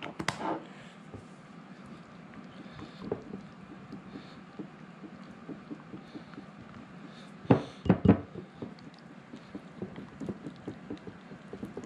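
Wire whisk beating a thin flour-and-beer batter in a bowl: a steady run of quick, faint clicks and scrapes of the wires against the bowl, with a few louder knocks about seven and a half seconds in.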